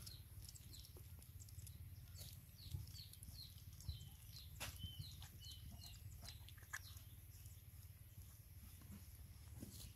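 Faint sounds of puppies eating from a shared bowl: soft scattered clicks of lapping and chewing, with a run of short high chirps for a few seconds in the middle.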